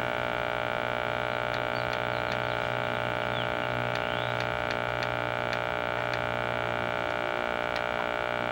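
A Zenith Space Command vacuum-tube console TV's loudspeaker giving a steady buzz with no programme sound over it. The owner blames the buzz more on the set's audio detector, a known Zenith weakness when the IF is slightly out of alignment, than on bad electrolytic capacitors.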